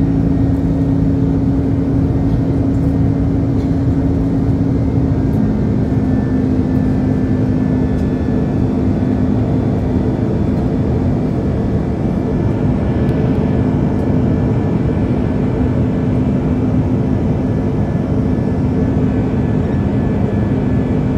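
Airbus A330 cabin noise during the climb after takeoff: the steady loud rush of its turbofan engines and airflow, heard from a window seat over the wing. A low drone under the rush changes pitch slightly about five seconds in.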